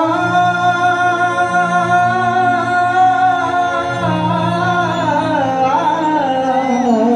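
A male singer, amplified through a stage PA, holds one long sung note for about four seconds, then slides downward through ornamented turns. Under the voice runs a sustained accompaniment of held chords that shift a few times.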